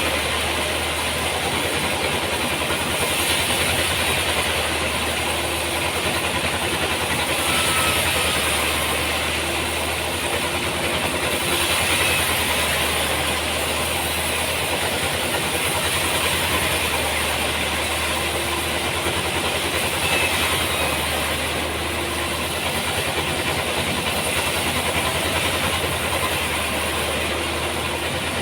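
Sawmill machinery running steadily, an even mechanical noise over a deep constant hum.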